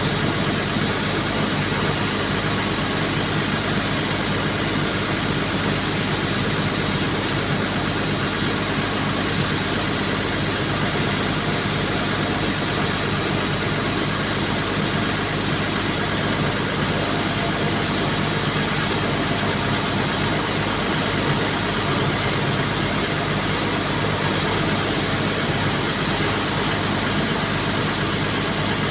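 Bulldozer's diesel engine running at a steady speed, with no revving or change in pitch.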